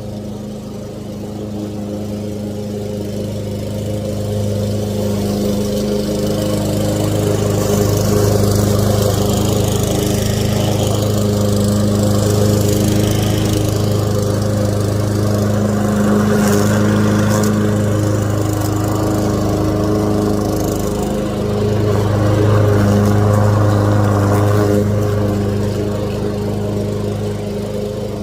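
Lawn mower engine running steadily while cutting grass. It grows louder over the first several seconds and eases off somewhat near the end.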